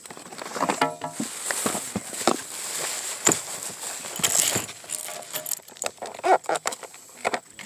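Hard plastic gun case being handled close to the microphone: scattered knocks and clicks with scraping and rustling.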